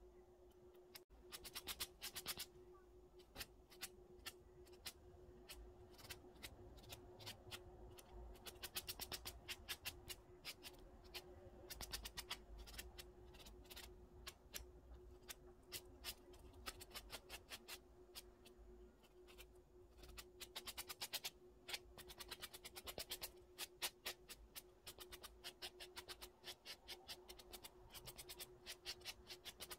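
A white sanding buffer block rubbed quickly back and forth over fingernails, making dry scratching strokes several a second in bursts.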